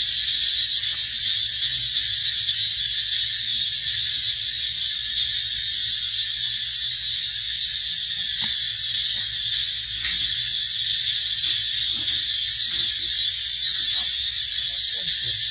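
Steady, high-pitched buzzing drone of an insect chorus, with a few faint clicks.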